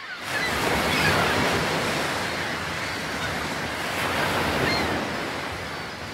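Sea waves washing, swelling in quickly at the start and slowly ebbing away.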